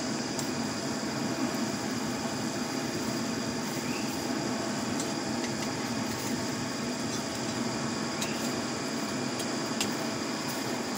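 Steady rushing of a blown charcoal forge fire, with a few faint crackles, as a hoe blade is heated to red for hardening in oil.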